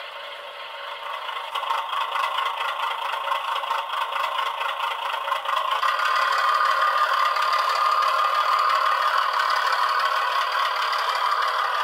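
G scale model diesel shunting locomotive running along the track, a steady rattling whir that gets louder about six seconds in.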